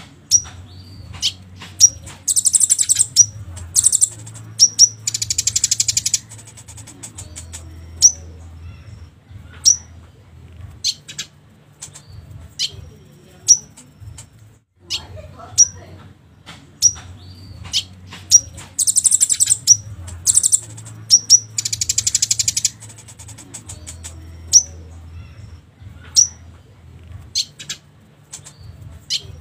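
Recorded konin songbird calls played as a lure to set caged birds singing: sharp, high single chirps every second or so, broken by rapid buzzy trills. The sequence loops, starting over about halfway through.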